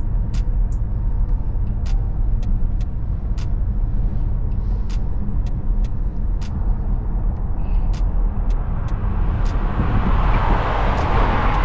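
Volkswagen Tiguan with a 1.4 TSI turbo four-cylinder petrol engine on the move: a steady low engine and road rumble with scattered sharp clicks. A hiss builds from about halfway through and is loudest near the end.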